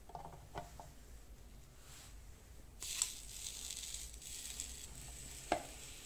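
A few small handling clicks, then from about three seconds in a faint steady sizzle as croissant dough cooks on the hot plates of a mini waffle maker, with a sharp click near the end.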